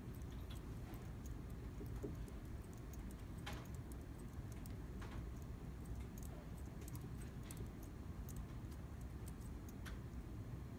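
Faint room tone: a steady low hum with scattered faint, irregular ticks and clicks.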